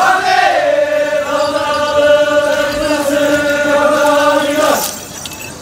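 Group of Paiwan warrior dancers chanting in unison: one long held call that dips slightly at the start, stays on a steady pitch for about four and a half seconds, then slides down and fades near the end.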